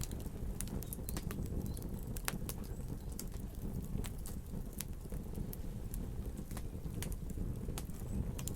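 Campfire crackling: frequent sharp, irregular pops and snaps over a steady low rumble of the burning fire.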